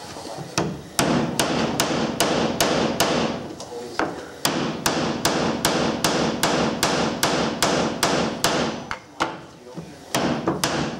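A hammer striking a wooden board fitted with steel tee nuts, knocking the nuts flush into the wood. The blows come in a steady rhythm of about two to three a second, with two brief pauses.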